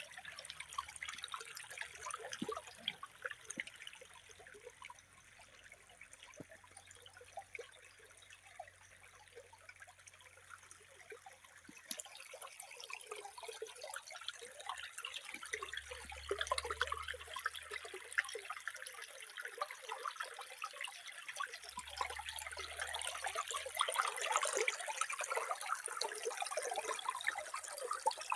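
Running water trickling and splashing, a dense patter of small drips and splashes that grows louder over the second half.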